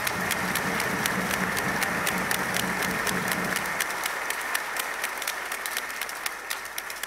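Large crowd applauding steadily in a big hall, with the clapping dying down near the end.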